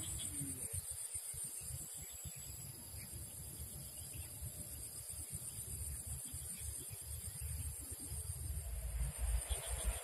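Insects chirring in a steady, high, fine-pulsed trill, over a low uneven rumble.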